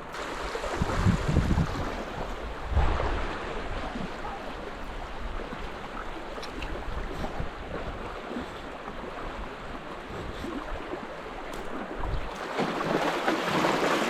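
Rushing river current, a steady wash of flowing water, with bumps of wind on the microphone about one and three seconds in; the water noise grows louder near the end.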